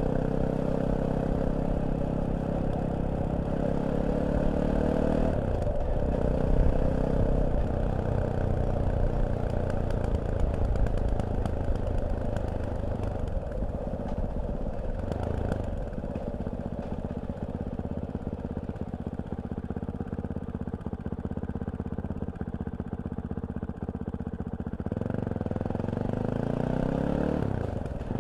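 Fantic Caballero 500 single-cylinder motorcycle engine running on the move. The revs drop twice, then hold lower and steadier for a while, before climbing again near the end with a quick dip between gears.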